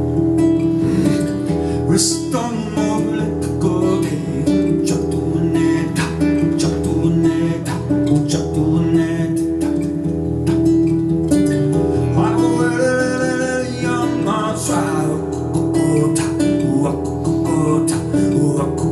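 Music: acoustic guitar strummed in a steady accompaniment, with sounds that slide in pitch laid over it twice, a falling one a couple of seconds in and a rising-then-falling one about two-thirds through.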